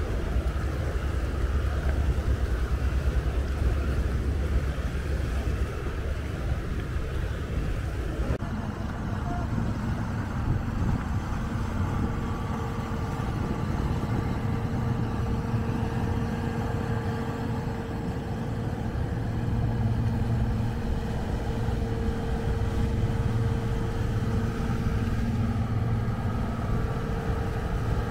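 Low wind rumble on the microphone for the first eight seconds or so, then the steady drone of a river cargo vessel's engine as the boat passes close by.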